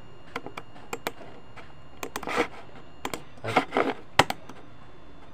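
Sparse computer keyboard and mouse clicks with a couple of short rustling scuffs; the sharpest click comes about four seconds in.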